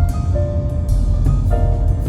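Background music with held instrumental notes and a steady beat of drum hits.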